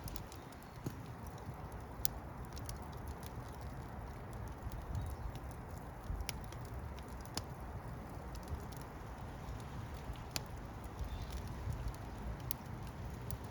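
Wood fire burning with a steady low rumble and sharp, irregular crackles and pops.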